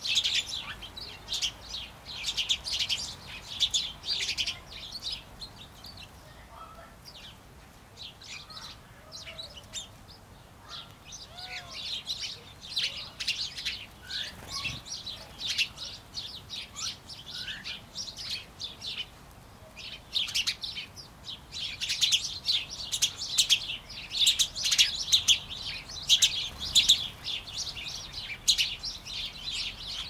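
A flock of sparrows chirping, many short overlapping chirps, thinning out twice for a few seconds and busiest near the end.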